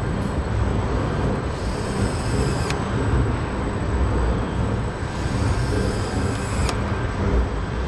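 Vehicle assembly-plant floor noise: a steady low machinery rumble and hiss with a faint high tone, broken by two sharp clicks about four seconds apart.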